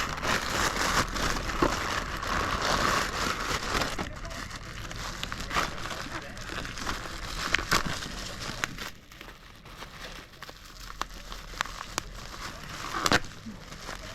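Packaging crinkling and rustling as a boxed card game is unwrapped, densest in the first few seconds, followed by scattered clicks and taps of the box and packaging being handled.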